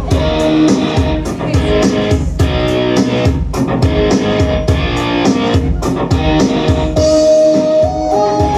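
Instrumental music with guitar over a drum kit keeping a steady beat; from about seven seconds in, a held melody line comes in over it.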